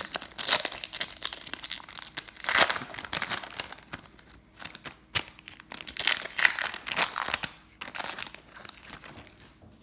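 Wrapper of a 2017 Topps Chrome baseball card pack crinkling and tearing as it is opened by hand, in irregular bursts that fade out over the last couple of seconds.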